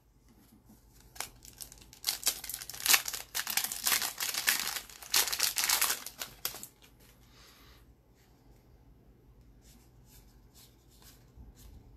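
Crinkling and rustling of a hockey card pack wrapper and cards being handled, in bursts for about five seconds, then a few faint light clicks and taps.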